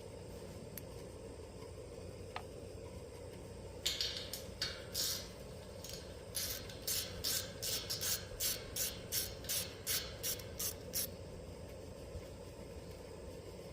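Socket ratchet wrench clicking in short back-and-forth strokes, about three a second, as nuts are backed off to free the fan shroud of an outdoor air-conditioner unit; a few separate ratchet strokes come first.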